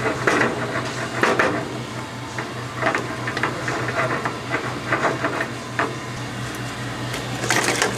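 Wooden spatula stirring and scraping rice around an enamelled steel paella pan, giving irregular knocks and scrapes against the metal, over a steady low hum. The rice is simmering in fish stock.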